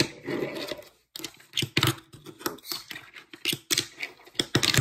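Hands handling small objects and packaging on a tabletop: a string of irregular sharp taps and clicks, with short scratchy scrapes between them.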